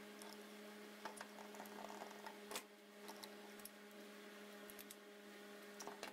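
Faint scattered clicks and taps of a brass gas valve and elbow fitting being handled and tightened with an adjustable wrench, over a steady low electrical hum.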